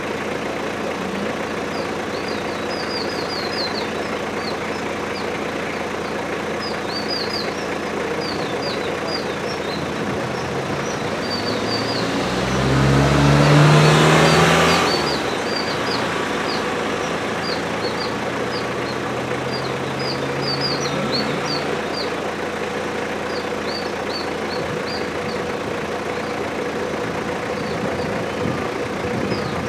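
Vehicle engine idling steadily, with short high chirps scattered throughout. About twelve seconds in, another motor vehicle passes close by, rising and falling in loudness over about three seconds.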